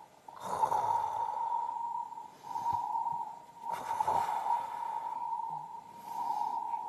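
Deliberately abnormal, laboured human breathing picked up by an electronic lung-sound monitor: about three drawn-out breaths, some three seconds apart, over a steady high whine.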